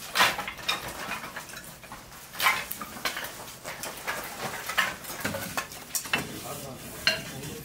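Irregular knocks and clacks of split firewood sticks being handled and fed into the firebox of a wood-fired pottery kiln.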